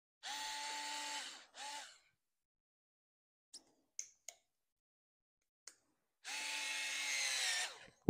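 Cordless electric screwdriver driving a screw: a run of about a second, a short second burst, a few small clicks, then a longer run near the end whose pitch drops as the motor slows under load while the screw draws tight.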